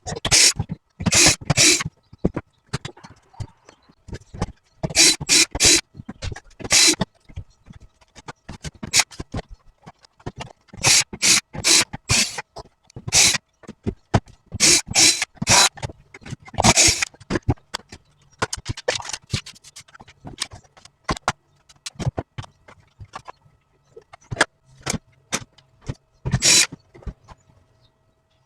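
Irregular clicks, knocks and short scrapes of hard plastic parts being handled and worked on, typical of taking apart a robot vacuum cleaner, with a faint steady tone underneath.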